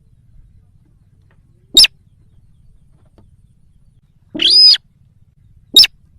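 Lure recording of sintar, the rice-field bird, calling: a short sharp call, a longer call about two and a half seconds later, then another short sharp call. Faint low hum underneath.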